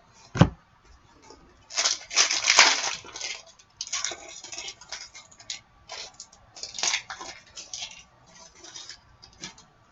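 A single knock, then the wrapper of an Upper Deck hockey card pack crinkling as it is torn open, loudest around two seconds in, followed by scattered rustles of the wrapper and cards being handled.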